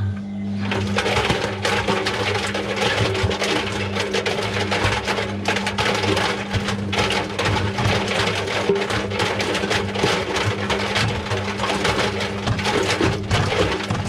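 Front-loading washing machine drum starting to turn about a second in, tumbling balloons through water: a steady motor hum under dense sloshing and knocking.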